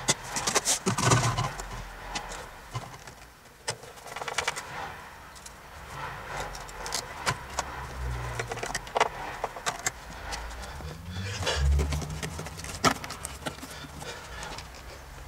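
Hand-work noises: scattered clicks, knocks and handling rustles as a screwdriver is worked into a wooden batten and plastic pipe clips are fitted around a vacuum-cleaner hose.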